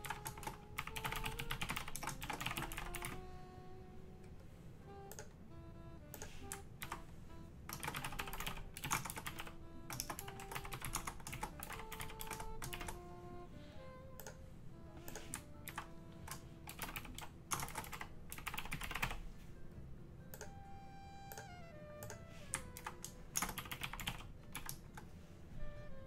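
Typing on a computer keyboard in several bursts of rapid clicks, each a second or two long, over quiet background music with a slow melody of single held notes. The typing is the loudest sound.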